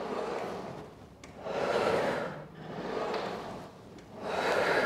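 A woman breathing hard in time with an exercise. A breath comes about every second and a half, stronger exhales alternating with softer inhales.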